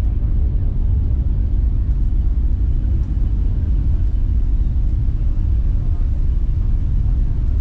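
Steady low rumble of wind buffeting the microphone on a ferry's open deck at sea.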